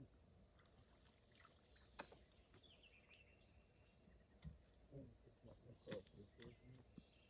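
Near silence: a faint steady high drone of insects, with a few faint clicks and a brief faint voice about five to six seconds in.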